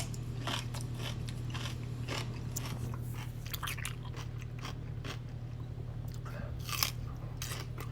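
Person biting into and chewing a Grillo's refrigerated dill pickle: a run of crisp wet crunches, the loudest about 7 seconds in. The pickle is decently crunchy.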